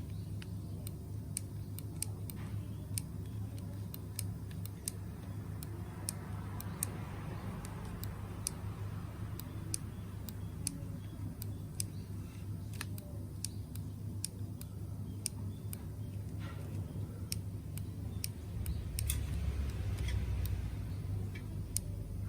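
Sharp light ticks, about two a second at uneven spacing, over a steady low hum. This is the kind of clicking noise a car abnormal-noise repair sets out to cure.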